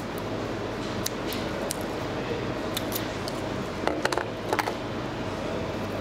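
Fluorocarbon fishing line and its spool being handled on a counter: a scatter of light clicks and small taps, several close together about four seconds in, over a steady room hum.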